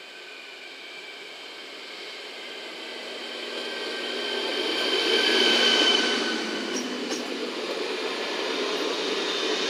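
ČD class 651 RegioPanter electric multiple unit drawing into the halt to stop, growing louder as it nears and passes close by, with steady high-pitched whines over the running noise of the wheels on the rails.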